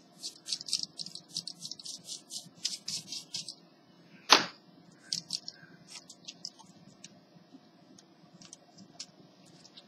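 Small plastic clicks and rattles from handling a laptop keyboard and its ribbon cable as it is fitted into the keyboard bay: a quick run of light clicks, one sharp louder click about four seconds in, then scattered clicks.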